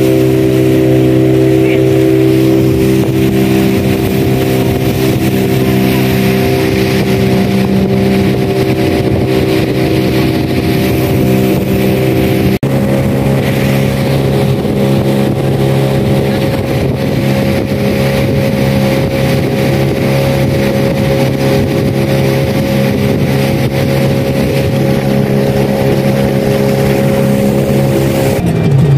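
Small motorboat's engine running steadily under way, with a constant droning note and the rush of water and wind past the hull.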